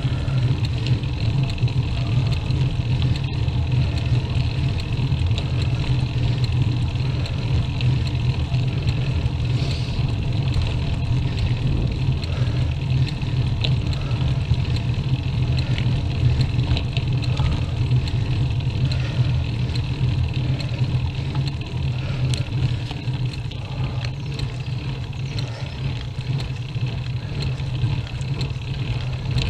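Steady rumbling road and drivetrain noise of a bicycle climbing on tarmac, picked up by a camera mounted on the bike. It eases slightly in the last third.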